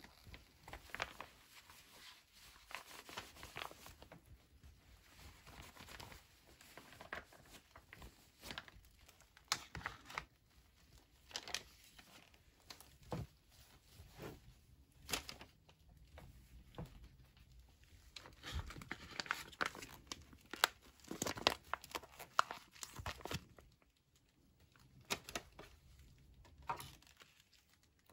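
Plastic and foil MRE pouches crinkling and rustling as they are handled, in irregular crackles with some tearing, busiest about two-thirds of the way through.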